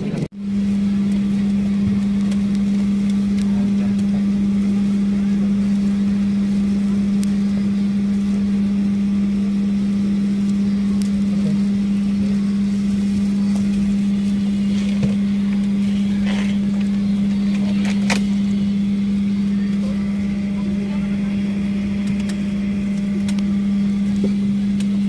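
A loud, steady low hum at one unchanging pitch, starting and stopping abruptly, over faint background noise with a couple of light clicks.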